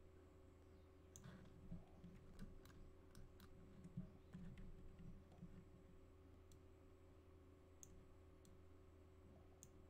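Faint computer mouse clicks and scroll-wheel ticks, a dozen or so at irregular moments, most of them in the first half, over a steady low electrical hum.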